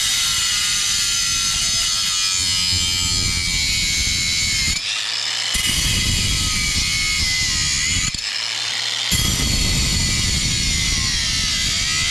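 Cordless angle grinder cutting through steel dirt bike wheel spokes: a steady high whine with harsh grinding noise under it. The grinding drops out briefly twice, about five and eight seconds in, as the disc comes off between spokes. The spokes are being cut off because they are seized, turning and stripping instead of unscrewing under a spoke wrench.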